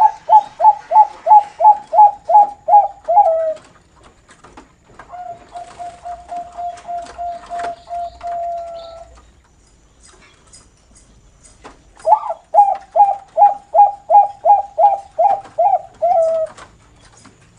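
Perkutut (zebra dove, Bangkok breeding line) singing in the song style fanciers call noklak: a fast run of about a dozen staccato coo notes, about three a second, then a quieter, steady purring coo held for about four seconds, then a second run of rapid coo notes near the end.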